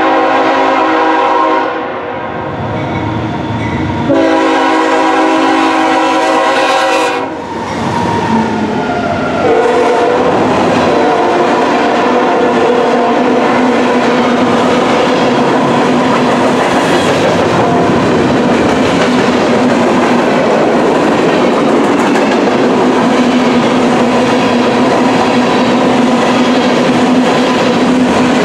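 Diesel freight locomotive's air horn sounding two long chords, the second starting about 4 s in. After that the locomotive and a long string of BNSF covered grain hopper cars roll past close by, with a steady, loud rumble of wheels on rail.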